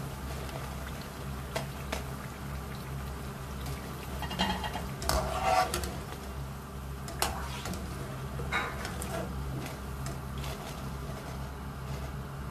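Potato and onion pakoras deep-frying in hot oil in a wok with a steady bubbling hiss. A wire-mesh skimmer scrapes and clinks against the pan a few times as the fried pakoras are scooped out, loudest about five seconds in.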